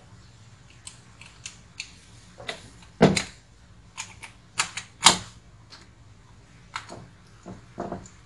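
Irregular clicks and knocks from handling a plastic automatic water-pump pressure control unit while a small screwdriver works at its terminal screws, with two louder knocks about three and five seconds in.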